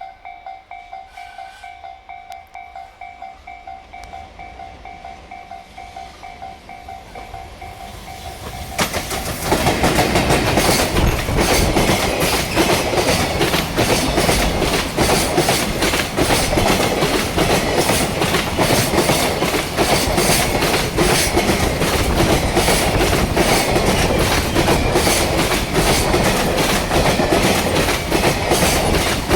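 A level-crossing warning bell rings in steady, evenly repeated strokes. About nine seconds in, a JR Freight EF210 electric locomotive with a long train of container flatcars passes, loud, its wheels clattering rapidly and heavily over the rail joints.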